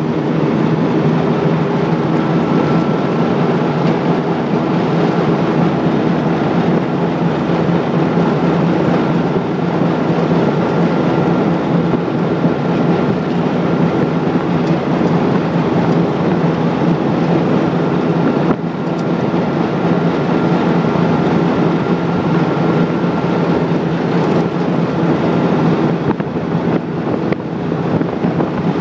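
Vehicle driving along a dirt road, heard from inside the cab: a steady engine drone with road and tyre noise.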